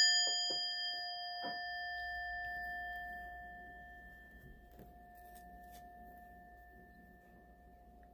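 Small brass singing bowl ringing after one strike with a wooden striker. It gives a clear tone with several higher overtones, which die away first, and the main tone fades slowly over several seconds.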